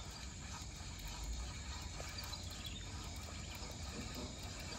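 Outdoor river ambience: a steady low rumble and hiss with a few faint scattered clicks.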